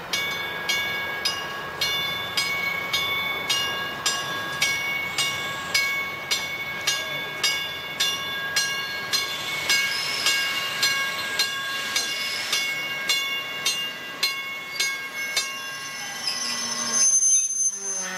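A railroad warning bell ringing steadily, a little under two strokes a second, as a passenger train comes into the station. Near the end the train's passing gets louder, with a high squeal, and the bell strokes give out.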